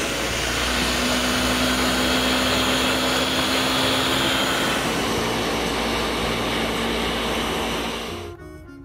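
Ninja countertop blender running at full speed, blending frozen strawberries, banana, spinach and water into a smoothie: a steady loud whir with a motor hum, cutting off about eight seconds in.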